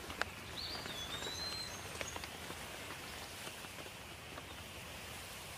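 A bird gives a whistled call about half a second in, a held note that glides slightly, with a few higher chirps after it, over a steady outdoor hiss. A sharp click near the start, as a plastic crate is set down on the bank.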